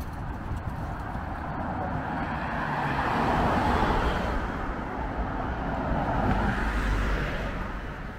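A car driving past, its engine and tyre noise swelling to a peak about halfway through and fading away near the end.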